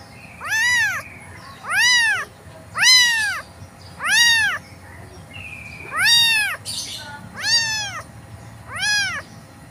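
Very young tabby kitten meowing seven times at a steady pace, each call high-pitched and rising then falling in pitch: the crying of a baby kitten without its mother.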